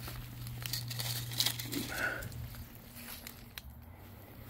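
Dry magnolia leaves crackling and crinkling in a quick run of sharp clicks, busiest in the first two and a half seconds and thinning out after.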